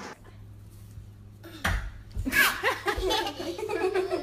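A thump or two about a second and a half in, then a boy laughing in short bursts.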